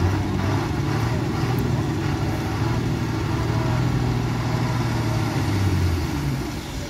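Heavy loaded goods truck's diesel engine running steadily with a deep low hum, on a truck nearly out of fuel on a steep hairpin climb; the engine note drops a little near the end.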